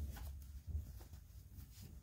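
Faint rustling and scratching of a toy tent's olive-drab cloth and its cord tie as fingers work the knot, a few short scratchy strokes over a low handling rumble.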